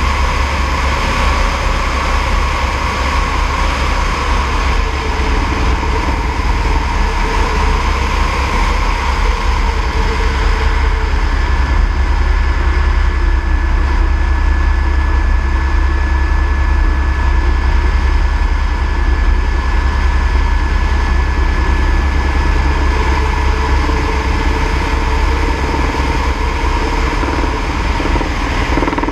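Airbus AS350 B3e Écureuil helicopter in flight: its rotor and turboshaft engine make a steady, loud noise with a deep rumble and a thin, steady whine.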